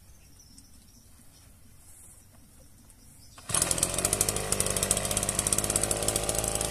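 Handheld petrol earth auger's small two-stroke engine starting abruptly about halfway through and then running fast with a rapid, even firing rattle.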